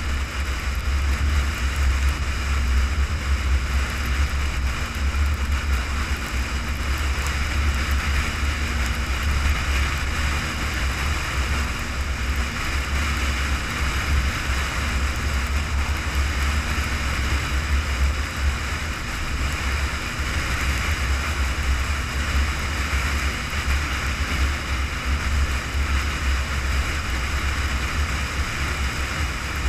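Steady wind rush and road noise of a vehicle cruising at highway speed, with a heavy low rumble and an even hiss throughout.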